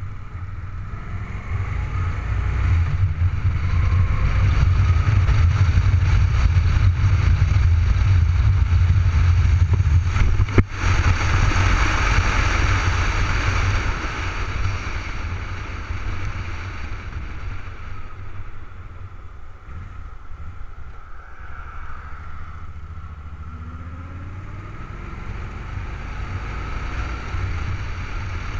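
Cruiser motorcycle riding at road speed, heard through a helmet-mounted camera: a steady low engine drone mixed with rushing wind noise. A sharp click about ten seconds in; the sound eases off in the second half and builds again near the end.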